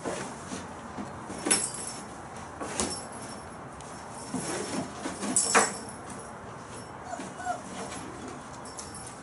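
Month-old puppies moving and playing about a wooden pen floor strewn with shavings: scattered scrapes and rustles, the loudest about a second and a half in and again past the five-second mark. A couple of faint, short puppy whimpers near the end.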